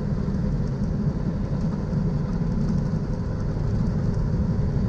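Steady low drone of a semi truck's engine and road noise heard inside the cab while cruising at highway speed.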